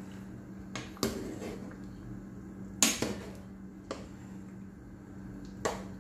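Several sharp clanks of cookware, a utensil or lid knocking against a cooking pot, with a short ring after each; the loudest comes about three seconds in. A steady low hum runs underneath.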